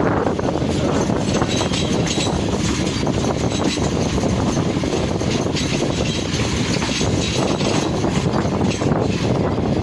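Passenger train running at speed, a steady din of wheels on rail and rushing air heard from aboard a coach.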